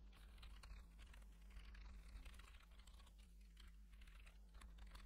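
Faint, rapid typing on a computer keyboard, many key clicks a second, over a low steady hum.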